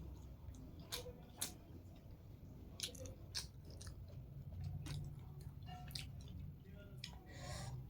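A person chewing a mouthful of spicy hakka noodles close to the microphone, with scattered short, sharp mouth clicks.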